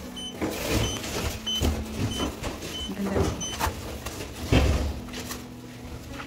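Electric massage chair humming steadily, with a run of short high beeps about every two-thirds of a second during the first three seconds. Knocks and paper rustling come from the chair being handled, with a heavy thump about four and a half seconds in.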